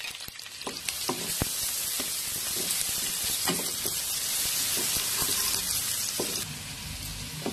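Sliced onions sizzling as they fry in hot ghee, stirred with a wooden spatula that scrapes and knocks against the pot. The sizzle builds about a second in and eases near the end.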